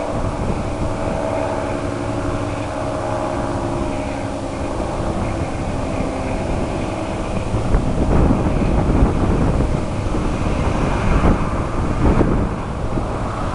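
Federal Signal 3T22 three-tone outdoor warning siren, its chord of steady tones fading away over the first half as it winds down. Wind buffets the microphone throughout and grows louder and gustier in the second half.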